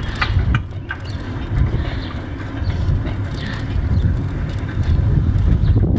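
Bicycle riding heard from a camera on the bike: a steady low wind rumble on the microphone, with light clicks and rattles from the bike, most of them in the first second.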